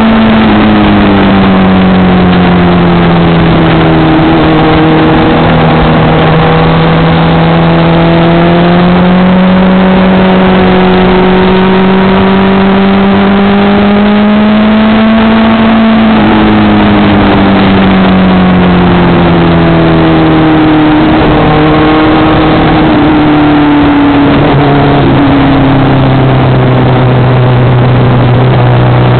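Motorcycle engine at moderate revs, its note slowly rising and falling, under heavy wind rush on the onboard microphone. The note sinks gradually about two-thirds of the way in and drops a step lower near the end.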